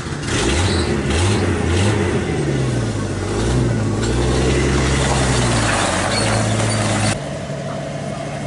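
A truck engine revving up several times in quick succession, then settling and holding at a steady speed. About seven seconds in, it changes abruptly to a quieter, steady idle.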